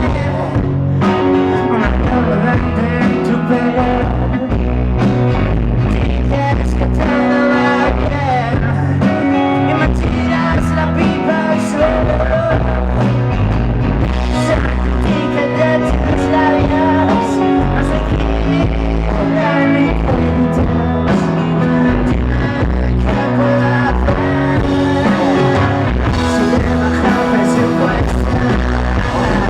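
Rock band playing live: electric guitars, bass and drums, loud and continuous.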